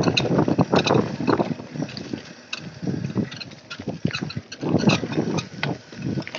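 Mountain bike ridden fast down a dirt trail: tyres running over dirt and dry leaves, with an irregular rattle of knocks and clicks from the bike over bumps, and wind rushing over the microphone. It is loudest at the start and again for a couple of seconds about two-thirds of the way in.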